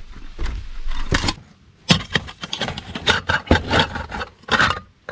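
Nesting camp cooking pots being handled and stacked: a series of irregular knocks, clinks and scrapes as the pots are set down and slid against each other.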